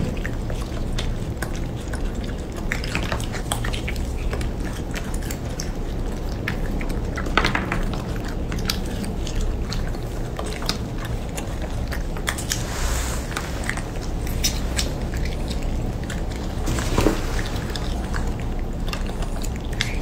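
Baby macaques chewing and lip-smacking on soft egg yolk: many small wet clicks and smacks, with a couple of louder ones about seven and seventeen seconds in, over a steady low background hum.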